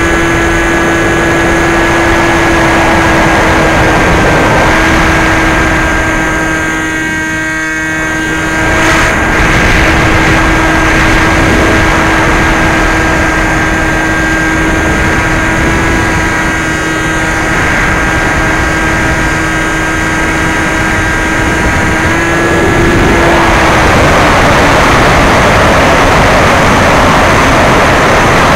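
Brushless outrunner motor (NTM Prop Drive 35-30A, 1400kv) spinning a 9x6 propeller on a Bixler 2 RC plane, a steady pitched hum over wind rushing past the onboard microphone. The motor note dips about seven seconds in, then cuts off about 23 seconds in, leaving louder wind rush as the plane glides down.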